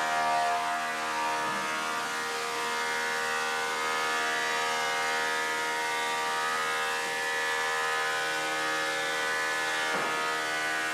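Delta DC-580 20-inch thickness planer with a 5 hp single-phase motor running steadily as it planes red oak boards, a constant whine of many tones, with a brief knock about ten seconds in.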